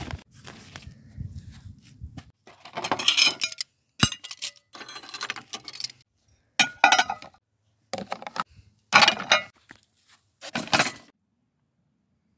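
Metal cutlery clinking and clattering together as it is gathered up off dinner plates, in several short bursts.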